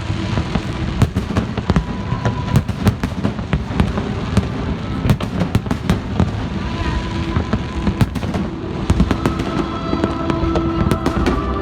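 Fireworks display: a rapid, irregular run of sharp bangs and crackles from bursting shells over a constant low rumble. Faint music plays underneath and becomes clearer about nine seconds in.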